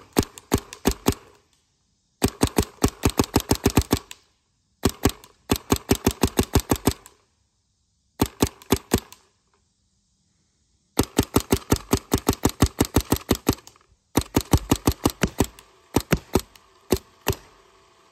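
Alien Revelation trap-door paintball marker firing strings of rapid shots, about six or seven a second, with short pauses between the strings. Each shot cycles its pneumatic ram and trap-door breech.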